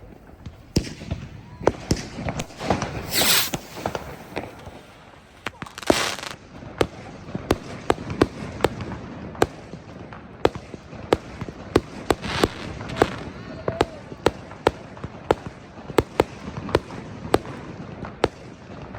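Fireworks going off: a couple of longer hissing bursts in the first few seconds, then a run of sharp cracks at about one or two a second.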